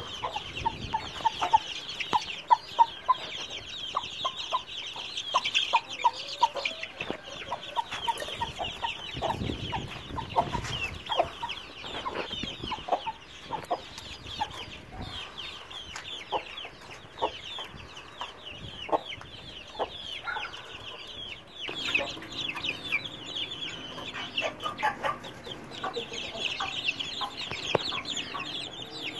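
A brood of chicks peeping continuously in dense, high-pitched chirps, with short lower clucking notes from young chickens scattered through it.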